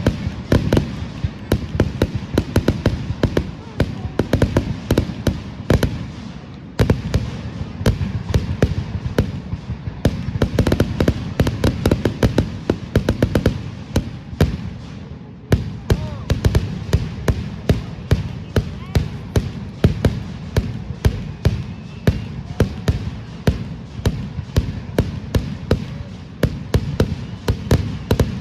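Fireworks display: dense, rapid crackling bursts and booms, several a second, the low thuds heaviest.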